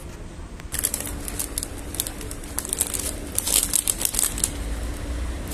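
Paper burger wrapper crinkling as it is handled, starting about a second in and going on in irregular crackles.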